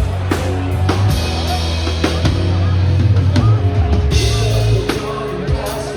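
Loud rock music with a drum kit beating over a heavy, steady bass.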